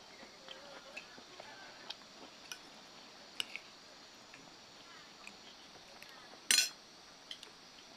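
Faint scattered clinks and taps of cutlery and dishes, with one louder brief clatter about six and a half seconds in.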